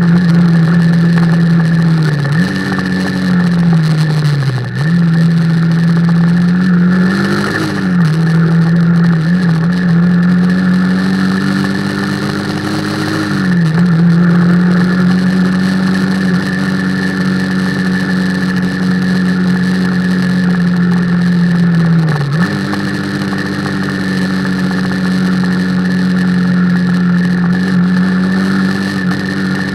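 Motorcycle engine running at a steady cruising pitch, heard on board the bike over steady wind rush. Its pitch sags and picks up again a few times as the revs change, rising once and dropping back about halfway through.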